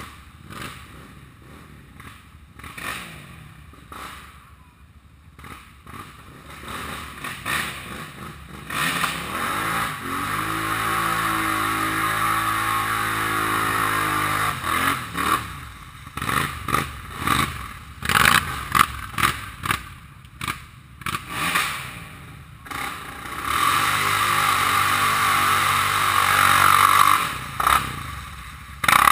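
ATV engine running through mud, opening up and holding steady revs for several seconds twice, with choppy on-off throttle in between. Clattering knocks come from the machine bouncing over rough ground.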